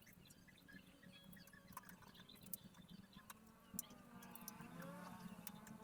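Near silence with scattered faint clicks and taps: a screwdriver and screws fixing a motherboard to the case's standoffs.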